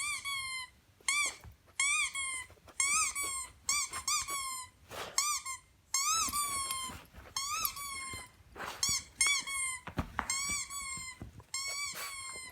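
Squeaky-toy sound effect played through an iPad speaker: many short, high squeaks, each rising and then falling in pitch, in quick runs of two or three. A few sharp knocks fall between them.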